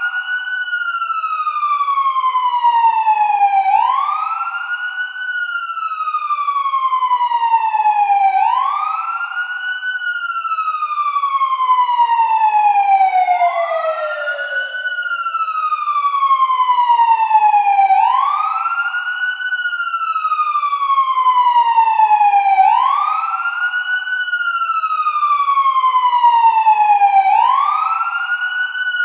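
Police car siren sounding a wail. Each cycle climbs quickly in pitch, then glides slowly back down, repeating about every four and a half seconds.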